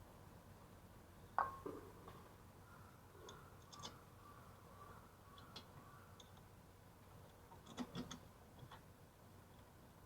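A few faint, short clicks and knocks over low background noise: the loudest about a second and a half in, and a small cluster near the end.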